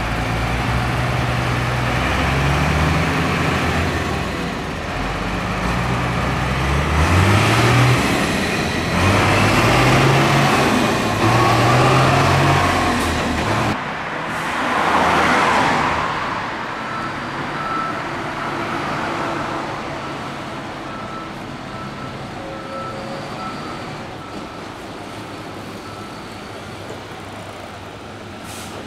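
Heavy diesel engine of an armoured police truck pulling away, revving up in pitch several times as it goes through the gears. After a cut, a passing vehicle's brief rush, then a heavy police water cannon truck driving by in steady traffic.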